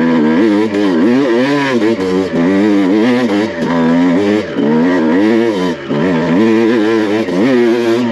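Honda CR250 two-stroke single-cylinder dirt bike engine under hard load on a steep climb in second gear, its revs rising and falling over and over. The rider is slipping the clutch while revving to keep the engine on the pipe.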